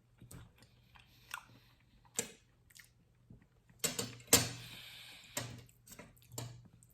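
A person eating cake: quiet chewing with small mouth clicks, and a brief rustle about four seconds in.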